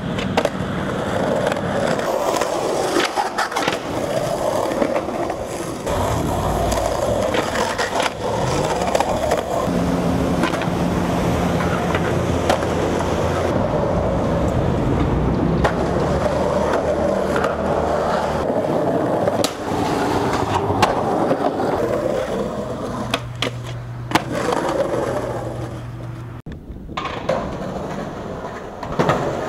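Skateboard wheels rolling on rough concrete with a steady rumble, broken by sharp clacks of the board's tail popping and the board slapping down on landings, over several short runs.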